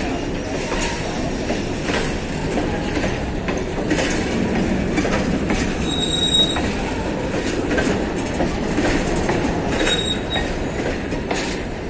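Train wheels running on the rails: a steady rumble broken by irregular clacks. Brief high wheel squeals come about six seconds in and again near ten seconds.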